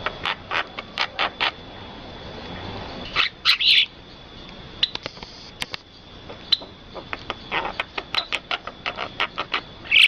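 A jalak, a starling, calling in runs of quick, sharp chirps, with a louder pair of calls about three and a half seconds in and a longer fast run near the end. A steady high thin tone runs underneath.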